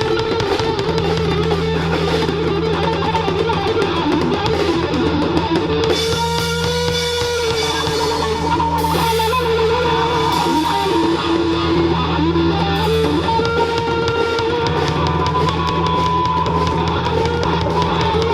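Live rock band with distorted electric guitar, bass guitar and drum kit playing loudly and steadily, with a sustained guitar lead line over the rhythm.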